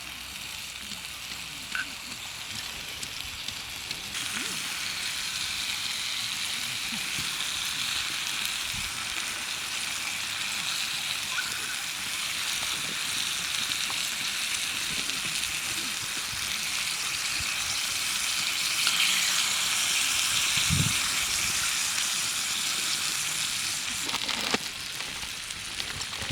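Food sizzling in a frying pan over a camp stove, a steady hiss that grows louder about four seconds in and dies down near the end.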